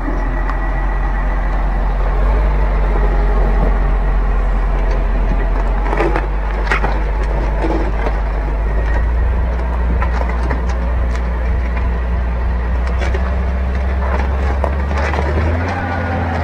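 John Deere tractor's diesel engine running steadily under load as it pulls a pipe-laying ripper through the soil, with a few sharp clicks and knocks from the rig, most around six to seven seconds in. The engine note steps up near the end.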